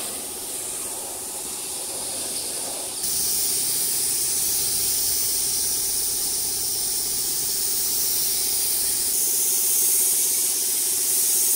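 Compressed air and paint hissing steadily from a gravity-feed spray gun as it sprays black paint onto a motorcycle fuel tank, with a steady low hum underneath. The hiss gets louder about three seconds in.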